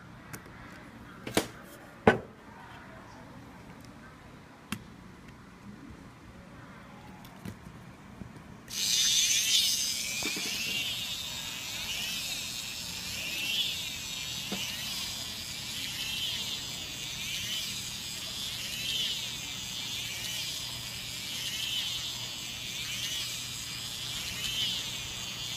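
Small electric motor and gearbox whirring as it drives a homemade Jansen-linkage walker's legs round. The whir starts about nine seconds in and swells in a steady rhythm a little slower than once a second as the legs go through each step. Before it starts there are a few sharp knocks and clicks.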